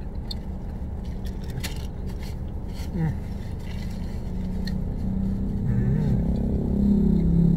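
Steady low hum of a car engine idling, heard from inside the cabin, growing slightly louder in the second half, with a few light clicks of a spoon against a plate.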